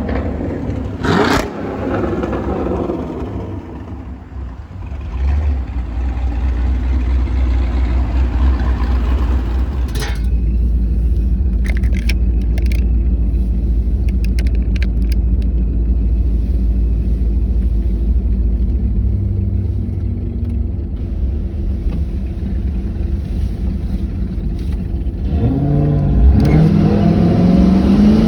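Modified Pontiac G8's V8 idling with a steady low rumble after slowing down, then revving up near the end, its pitch rising as it pulls away.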